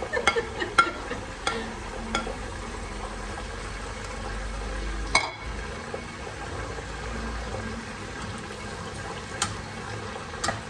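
Onions and coriander stems sizzling in olive oil in a pot. A utensil clicks and scrapes against the pot several times in the first two seconds, knocks once about five seconds in, and clicks twice near the end.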